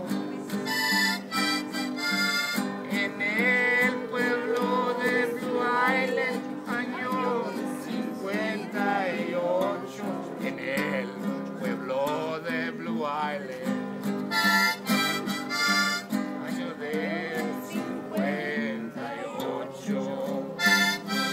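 Music: a wavering melody line over steady held chords, with a few sharp accents.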